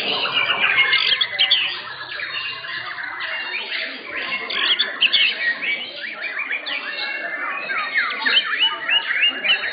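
White-rumped shama (murai batu) singing in contest: a dense, unbroken run of quick whistles, chirps and slurred notes, loudest in the first couple of seconds.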